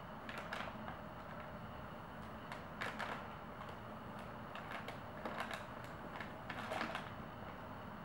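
Crumpled brown packing paper crinkling in short, irregular bursts as a cat pushes its face into the folds.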